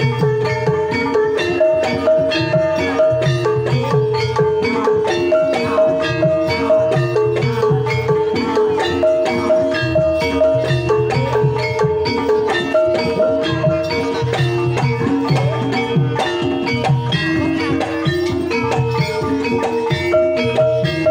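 Javanese gamelan playing a Banyumasan tayub piece: bonang kettle gongs struck with sticks in a busy run of ringing bronze notes, over a low beat that comes round about every second and a half.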